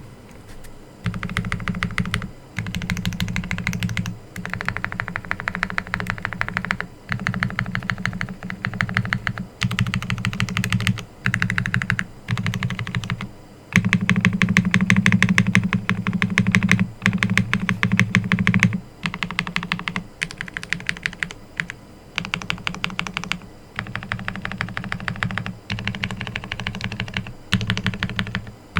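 Fast typing on a custom M0110 mechanical keyboard with Akko Silver POM linear switches: rapid keystrokes in runs of a second or two, broken by short pauses, with the longest and loudest run about halfway through.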